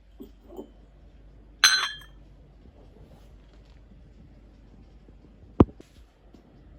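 A hard object clinks once, ringing briefly with a bright tone, like glass or crockery being knocked. A single sharp knock follows about four seconds later, against quiet room tone.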